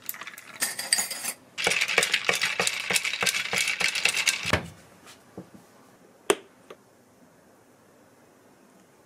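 A drink poured over ice cubes in a glass mug, the ice crackling and clinking, loudest for about three seconds, then dying away. A single sharp click follows a little later.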